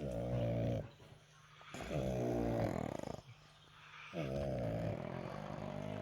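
Pug snoring: three drawn-out snores about two seconds apart, each a pitched drone that bends slightly in pitch, the last lasting nearly two seconds.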